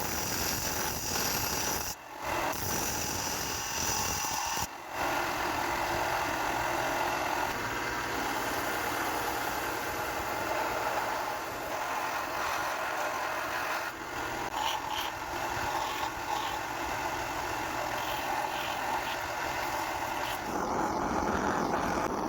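A shop tool running steadily while working a knife's wooden handle: a continuous hiss with steady hum tones. It drops out briefly twice in the first five seconds and changes character near the end.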